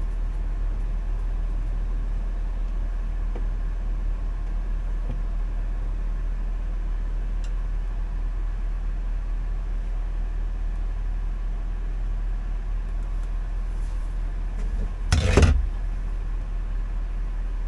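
A steady low rumble, with one brief loud scraping clatter about fifteen seconds in as a plastic air-conditioning vent panel in the camper's ceiling is prised open.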